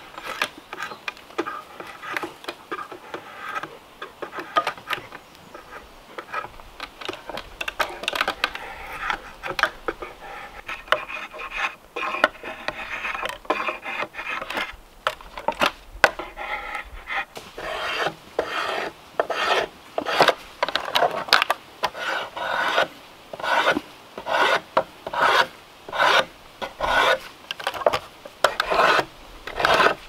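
Drawknife shaving a wooden handle blank, each pull of the blade a short rasping scrape. The strokes come irregularly at first, then settle about halfway through into a steady rhythm of roughly one a second.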